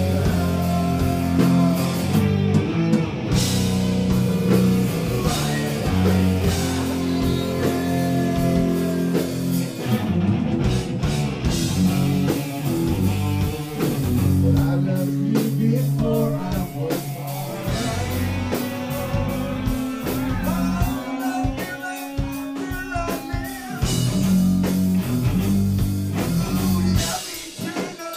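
Live post-hardcore band playing loud: electric guitars and bass holding low sustained notes over a drum kit, with a singer's voice gliding over the top. The music drops in level near the end.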